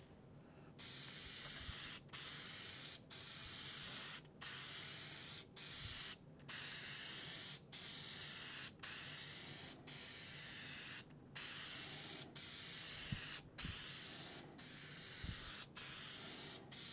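Aerosol can of 3M Super 77 spray adhesive hissing in a long run of short spurts, each about a second long with brief breaks between, as a heavy coat is sprayed onto foam.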